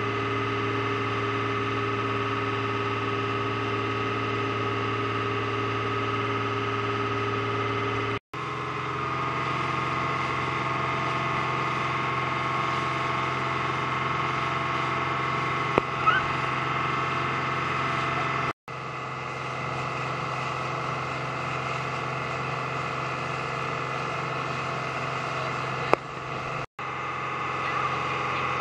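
Motorboat engine running steadily at cruising speed, a constant drone over the rush of the wake and wind. The sound cuts out for an instant three times, and the drone's pitch shifts a little after each break.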